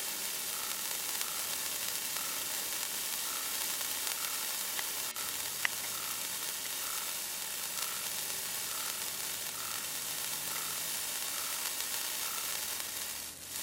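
Handheld spark-stick fountain burning with a steady hissing sizzle as it sprays sparks, with one sharp click about five and a half seconds in.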